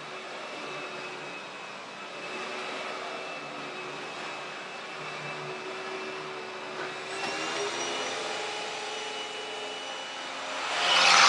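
Hoover WindTunnel upright vacuum cleaner running steadily, its motor giving a constant whine over the rush of air. Near the end the rushing grows much louder.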